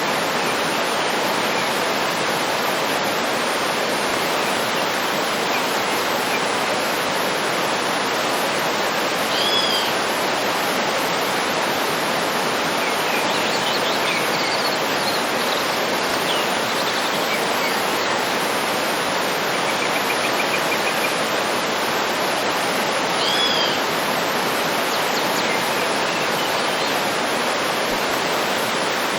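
Waterfall rushing steadily, with small birds calling over it: a high two-note chirp about ten seconds in and again near the end, fainter chirps in between and a brief trill.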